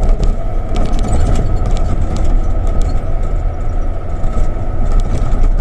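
Hino 500 FM260JD truck's diesel engine running under way in seventh gear, heard from inside the cab as a steady low rumble with a constant high whine. Frequent small clicks and rattles come from the cab on the rough dirt road.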